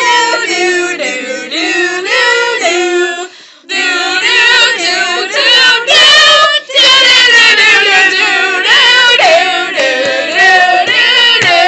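A group of young people singing a TV show theme tune on nonsense syllables like 'da-na-na-na', with a short break about three and a half seconds in.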